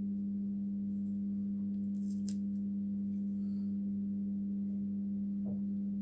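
Microwave oven transformer humming steadily on mains power: a low, constant hum with several overtones, its high-voltage winding driving only a small neon test lamp.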